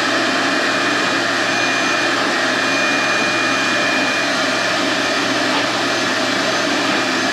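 Shop vac running steadily, pulling air out of a sandblast cabinet through its new filter to hold the cabinet under negative pressure: an even rushing noise with a faint high whine.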